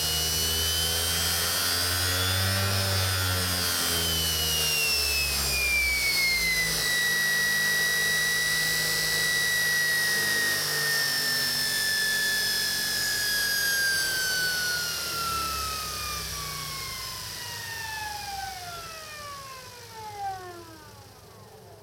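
SepEx DC electric motor on a Kaylor adaptor, spinning the VW flywheel with a high whine that rises a little at first, drops and holds, then falls steadily in pitch and fades as the motor winds down over the last several seconds. A short click near the end.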